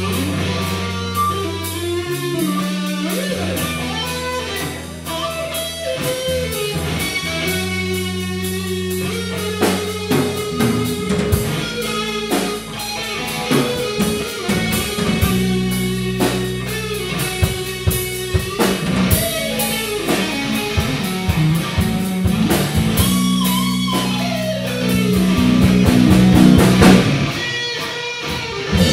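A live rock band plays: electric guitar over bass guitar and a drum kit. It is loudest near the end.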